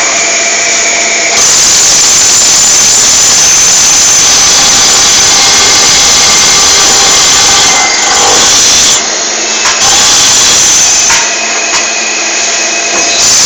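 CNC machine running and cutting: a loud, steady machining noise with a faint high whine, easing off briefly about nine seconds in and again near the end.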